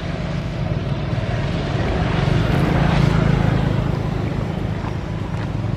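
A steady low motor drone that swells slightly two to three seconds in.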